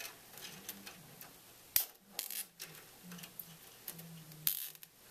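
Nylon zip ties being pulled tight around computer cables: a sharp click about two seconds in, then short ratcheting zips, the loudest near the end, among light clicks of handling.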